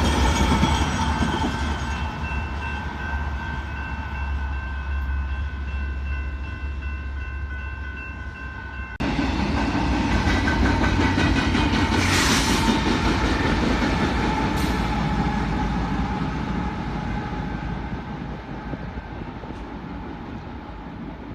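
Freight train passing at close range, a heavy rumble with wheel clatter, and a steady high ringing tone for several seconds. About nine seconds in it cuts abruptly to another loud stretch of passing train that slowly fades away.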